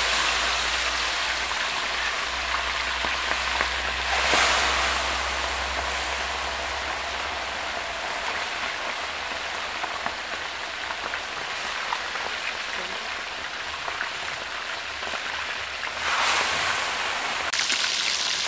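Whole mojarra fish deep-frying in very hot oil in an enamel pot, a steady sizzling hiss. It swells louder about four seconds in and again near the end.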